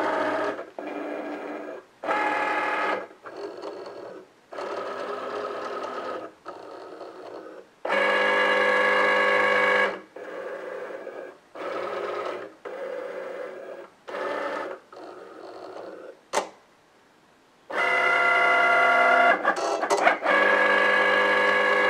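Cricut cutting machine's motors whirring in short stop-start runs as the carriage and mat shuttle back and forth, its sensor light reading the printed registration marks before the cut. A single click and a short pause come a few seconds before the end, then one longer unbroken run.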